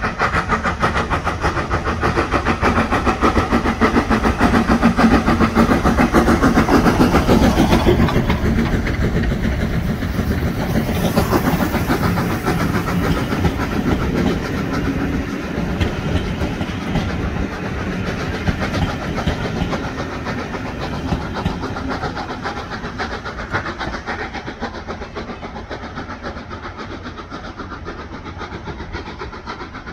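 Steam locomotive 2890 'Douglas' passing at work with a train of passenger coaches: its exhaust and wheels on the rails, loudest a few seconds in as it draws level, then slowly fading as the train goes away.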